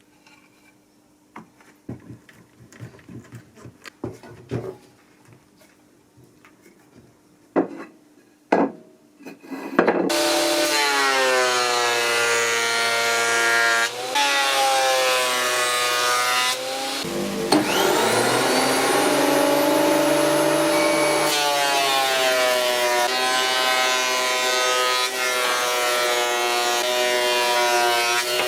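A few light knocks and clicks, then about ten seconds in a power saw starts up and runs loud. Its whine sags in pitch as it cuts through hardwood and climbs back as it frees up, several times over.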